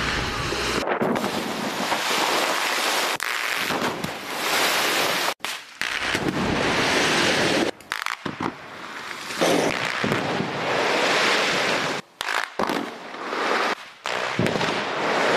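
Rock-slope blasting with explosives: blasts and the long rushing rumble of shattered rock and debris coming down the slope, with heavy wind-like noise on the microphone. The sound breaks off abruptly and restarts several times as one blast gives way to another.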